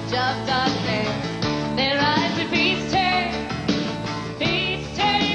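Live folk-rock band playing, with a woman's lead vocal sung with vibrato over the band.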